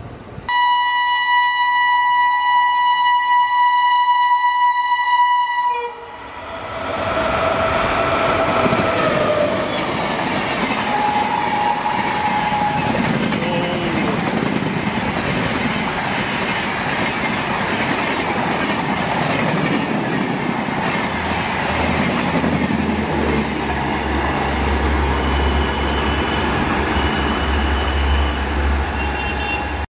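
An Indian Railways WAP-7 electric locomotive's horn sounds one long, steady blast of about five seconds. Then the 18-coach Shatabdi Express passes at full speed, a continuous rush of wheels on rails and moving air, with a deep low rumble building over the last third as the train draws away.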